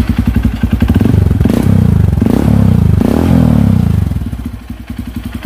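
Honda CRF150L's single-cylinder four-stroke engine running through a freshly fitted Norifumi Noctus T3 aftermarket exhaust. It is revved up several times in quick succession, then drops back to idle near the end.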